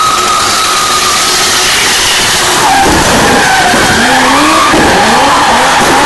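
Drift cars sliding with their tyres skidding and squealing, loud, while the engines rev hard; from about halfway the engine pitch rises and falls over and over as the drivers work the throttle through the slide.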